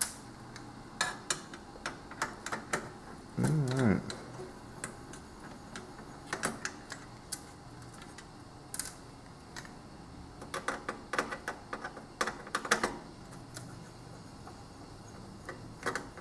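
Scattered small clicks and taps from hands and tools working screws and wire connectors on the TV's metal chassis and circuit board, coming irregularly in clusters. There is one short low hum about three and a half seconds in.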